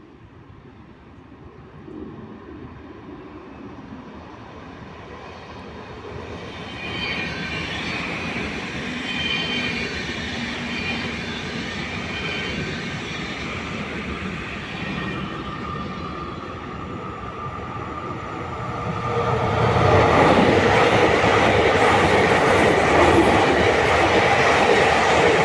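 A train approaching along the station track and coming close, its rumble growing steadily louder, with high-pitched wheel squeal over the middle stretch. About twenty seconds in it reaches full loudness as it runs past close by.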